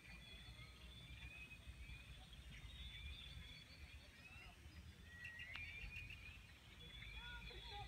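Faint dawn birdsong: several birds chirping and whistling short rising notes, with a quick run of about five notes a little past the middle. A low, steady rumble of wind or handling noise sits beneath.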